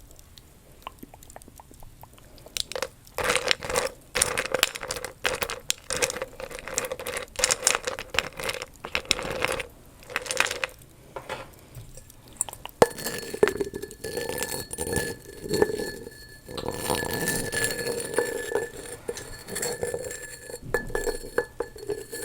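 Candy being rummaged through and tapped in a glass jar: irregular clinks and clicks of candy against glass, starting about three seconds in, with a faint glassy ringing under them later on.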